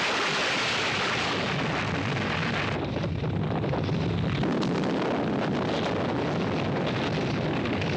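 Avalanche of snow sliding down a mountainside, heard as a film sound effect: a loud, steady rushing noise that loses some of its hiss about three seconds in.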